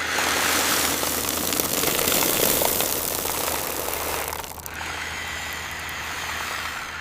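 Steady machine running noise with a strong hiss over a low, even hum, dipping briefly about four and a half seconds in before carrying on a little quieter.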